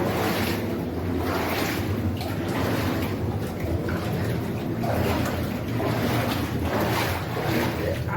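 Water sloshing and splashing in a rhythm of about one surge a second, like legs wading through flooded mine passages, over a steady low rumble.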